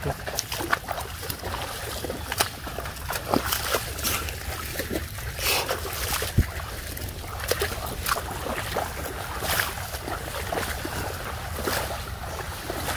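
Irregular footsteps splashing and squelching through shallow water and soft mangrove mud as people wade along a channel.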